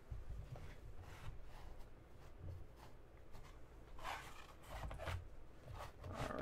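Faint rustling and light handling noises, with a few short scrapes about four seconds in and again near the end.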